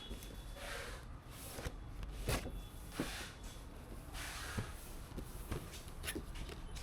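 Hands working on a PC build: soft rustling with several short, sharp plastic and metal clicks and knocks as parts are handled and fitted.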